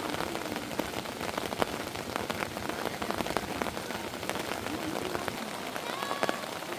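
Heavy rain falling, with many separate drops ticking sharply on a nearby surface.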